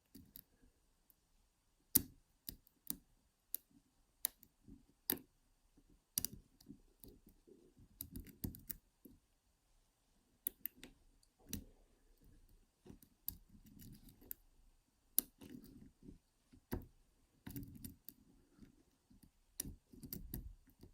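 Lock pick and tension wrench working the pins of a Sterling 5-pin Euro cylinder lock: scattered sharp metallic clicks at irregular intervals, with short stretches of soft scraping in the keyway.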